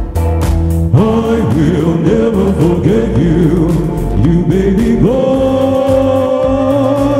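A song with a singer over a band with a steady beat: the voice sings quick runs of rising and falling notes, then holds one long note from about five seconds in.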